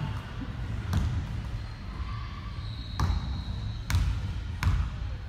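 A basketball bouncing on the court, four hard bounces at uneven intervals, with a brief high squeal in between, like a sneaker on the floor.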